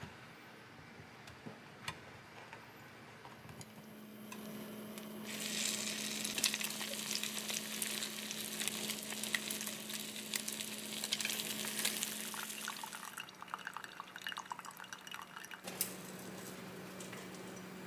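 Egg-soaked baguette slices sizzling in butter in a frying pan: the sizzle starts about five seconds in and dies down after about thirteen. Before it come a few light clicks of chopsticks against an enamel dish, and near the end a steady low hum.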